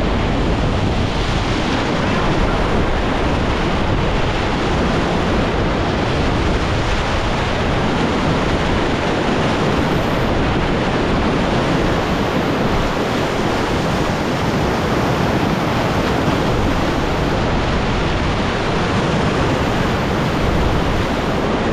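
Whitewater of a river rapid rushing steadily, with wind buffeting the microphone.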